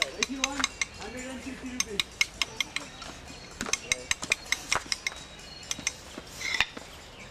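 Small hammer tapping a steel chisel into a stone mandala plate as it is carved. Quick, irregular light taps in runs, each with a short metallic ring.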